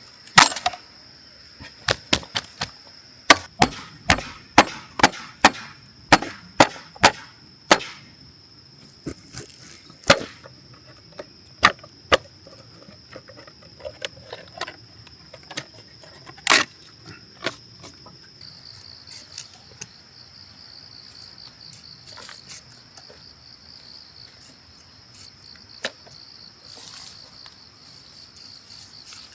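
A knife chopping dry wood: a fast run of sharp, woody strikes over the first eight seconds, then a few scattered ones, the last strong strike about 16 seconds in. Crickets or other insects drone steadily and high-pitched underneath, turning to a pulsing chirr about halfway through.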